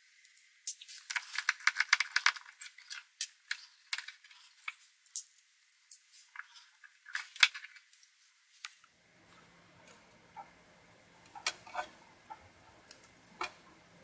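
Small metal clicks and clinks of a Swiss Army knife's tools and corkscrew being handled, quick and dense for the first several seconds, then only a few scattered clicks over faint background hiss.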